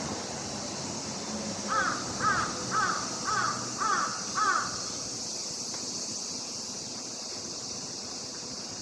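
A crow cawing six times in a quick, even series, about two calls a second, over a steady high hiss.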